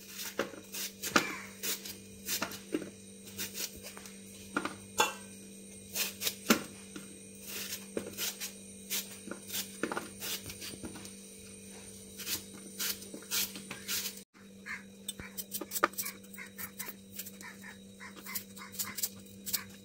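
Knife peeling and cutting vegetables into sticks in the hand: irregular crisp clicks and snaps as the blade goes through, with pieces dropping onto a plastic plate. A steady low hum runs underneath.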